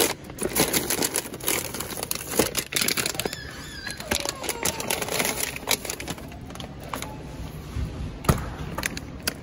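Plastic bags of frozen fruit crinkling and rustling as they are handled, with a few sharp knocks among the crackle.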